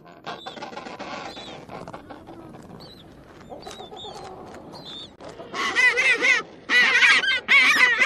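King penguins calling: faint high chirps at first, then from about five seconds in, three loud trumpeting calls with a warbling, wavering pitch, the head-up display call of an adult.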